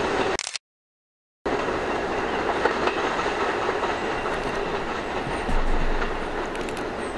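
New York City subway train running steadily on the rails. The sound drops out completely for about a second near the start, then carries on, with a brief low swell about two-thirds of the way through.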